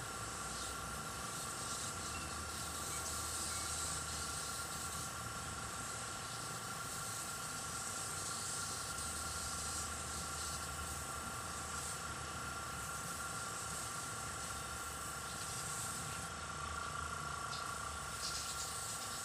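Airbrush spraying pink paint: a steady hiss of compressed air that swells and eases slightly as the trigger is worked, over a constant low hum.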